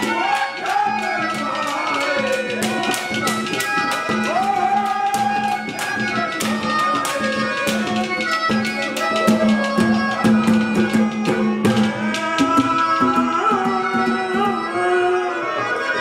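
Haryanvi ragni played live: a harmonium holds a steady drone under a wavering melody, with fast, dense dholak strokes that thin out near the end. A male voice sings in places.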